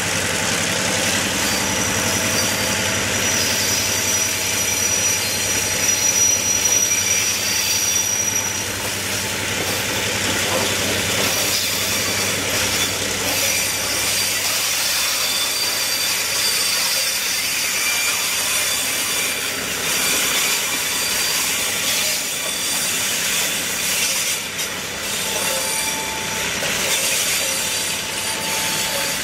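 Freight train of loaded hopper wagons rolling past close by: a steady wheel-on-rail rumble and clatter. A thin high wheel squeal runs through the first several seconds.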